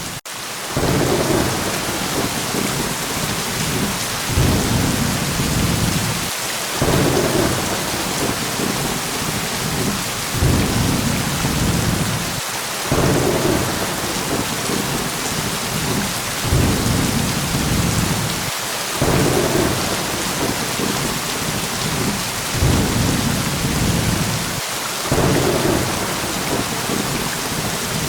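Steady heavy rain hissing, with low rolling thunder rumbles that swell up about every six seconds.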